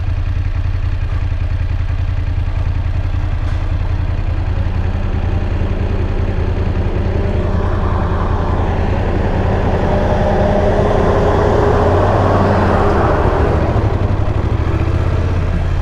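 BMW F850GS parallel-twin motorcycle engine running steadily under way, with road and wind noise; the sound swells in the second half, then eases near the end.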